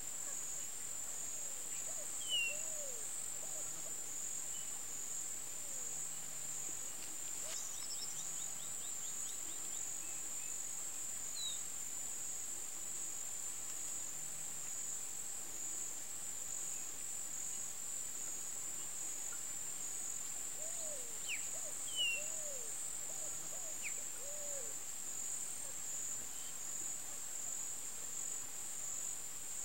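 Steady high-pitched drone of an insect chorus. Over it come two sharp short chirps, the loudest moments, and two clusters of short, low, rising-and-falling animal calls, one a couple of seconds in and one about two-thirds through.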